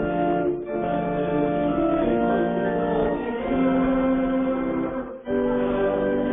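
Church organ playing sustained hymn chords, with brief breaks between phrases about half a second in and just after five seconds.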